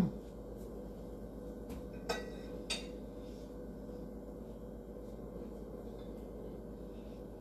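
Two light clinks about half a second apart, like a fork tapping a dish, each with a short ring, over a steady low hum.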